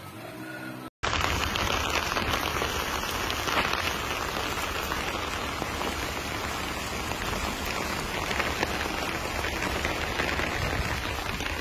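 Heavy rain pouring steadily onto flooded ground, starting suddenly about a second in.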